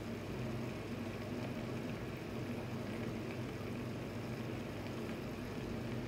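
Steady low hum with a faint even hiss, and no distinct sounds: background room tone.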